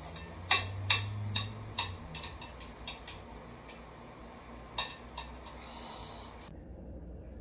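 Knife sawing through a toasted sandwich on a ceramic plate: a few sharp clicks of the blade against the plate in the first two seconds, quieter scraping, then two more clicks about five seconds in. The sound cuts off suddenly near the end.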